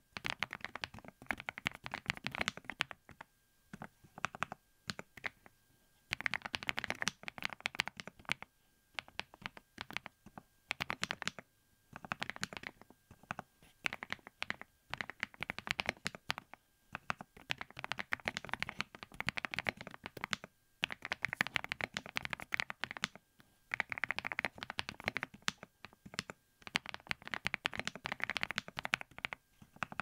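Fast touch-typing on a GEEKZB STORY65 R3 gasket-mount mechanical keyboard with NEO White linear switches and Cherry-profile dye-subbed keycaps. The keystrokes come in rapid runs of a few seconds with brief pauses between them. It has a very thocky sound, shaped by the silicone gasket mount and several layers of sound-absorbing foam.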